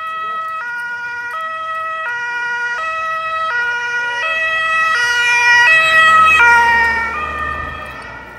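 German two-tone emergency-vehicle siren (Martinshorn) alternating high and low notes, each held under a second. It grows louder, then drops slightly in pitch and fades as the vehicle passes, over a faint engine rumble.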